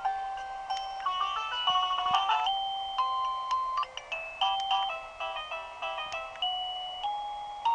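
CSMARTE plug-in wireless doorbell chime box playing one of its built-in electronic chime tunes through its small speaker: a melody of bright beeping notes, a quick run about a second in, then slower, held notes.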